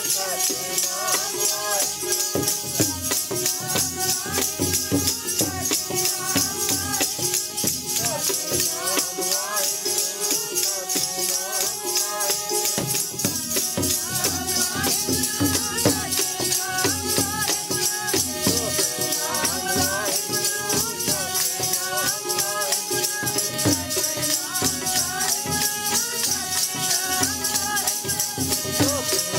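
Sikh kirtan: hymns sung to a steady beat with a bright, continuous jingling of metal percussion.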